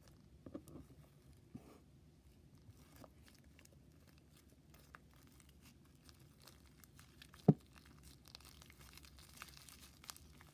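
Fluffy slime being kneaded by hand to work in pink paint: faint, irregular crackling and tearing sounds, with one sharp thump about seven and a half seconds in.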